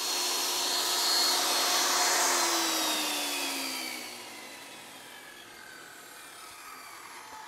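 10-inch Craftsman table saw switched off and spinning down: the motor and blade run steadily, then from about two seconds in their pitch falls steadily as they coast, getting much quieter after about four seconds.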